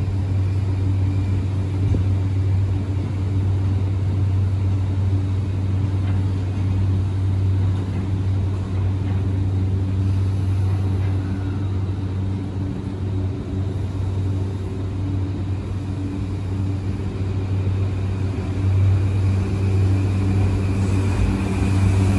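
A JR East E235 series 1000 electric train standing at the platform, giving a steady low electrical hum. Near the end it starts to pull away, with a rising whine from its traction inverter and motors.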